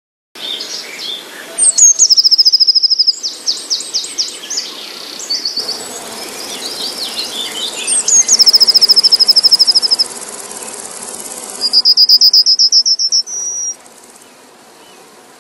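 Rapid, high-pitched chirping trills, three long ones over a second each, several opening with a short falling note, with softer chirps between. The background changes abruptly as if spliced, and the sound drops to a faint hiss near the end.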